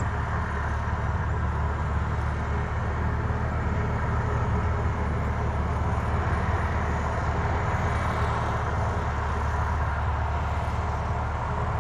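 A construction machine's diesel engine running steadily, a constant low hum with no strikes or knocks.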